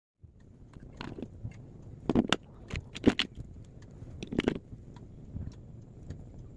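Irregular light clicks and knocks of objects being handled, with a few louder knocks in the middle.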